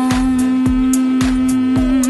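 Background music: a steady drum beat of about two beats a second under one long held note.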